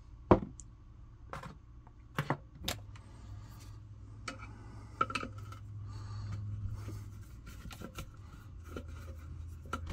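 Handling noise from repair work on an Instant Pot Duo base: a series of sharp clicks and knocks of plastic and metal as wire connectors and a screwdriver are worked. The loudest click comes about a third of a second in.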